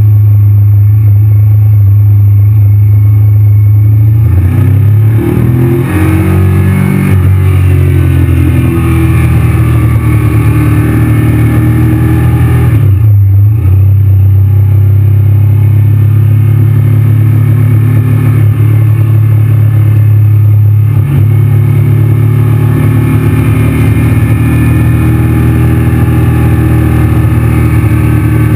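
Honda VTR1000's 90-degree V-twin engine running loudly under way, heard from on the bike. Its note shifts up and down around five to eight seconds in and briefly drops off about thirteen seconds in before picking up again.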